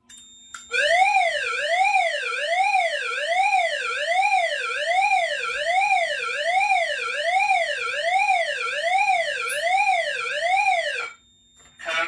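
Fire alarm speaker sounding a releasing panel's pre-discharge warning: a loud electronic tone sweeping smoothly up and down, about three sweeps every two seconds. It starts just under a second in and cuts off suddenly shortly before the end, as the abort switch is held.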